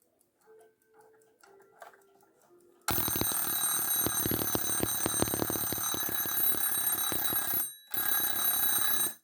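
Soviet 'Slava' mechanical alarm clock ringing: its hammer rattles rapidly against the bell with a high metallic ring. The alarm starts abruptly about three seconds in, breaks off for a moment near the end, resumes and then stops suddenly. Before it goes off, the clock ticks faintly.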